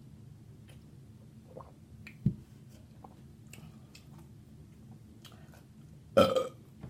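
Close-up eating sounds of a person chewing seafood boil: quiet wet chewing with small mouth clicks, a dull thump about two seconds in, and one loud, short bite near the end.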